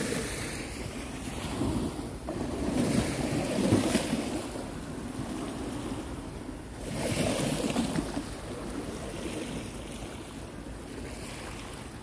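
Small sea waves washing and foaming against a concrete seawall step, surging louder about every three to four seconds, over a steady low rumble of wind on the microphone.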